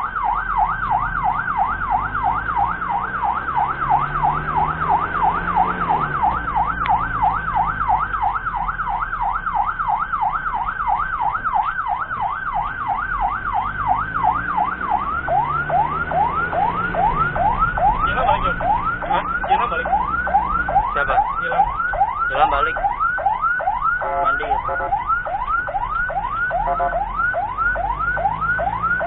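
Ambulance siren in a fast yelp, sweeping up and down about three times a second. About halfway through it changes to quick rising whoops that drop back sharply. Vehicle engine and road noise run underneath.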